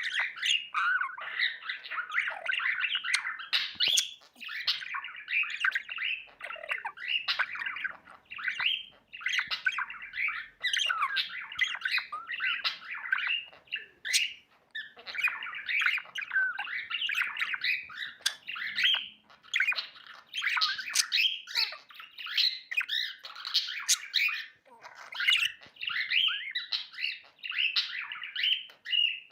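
Budgerigar chirping and warbling in a fast, near-continuous chatter, broken only by brief pauses.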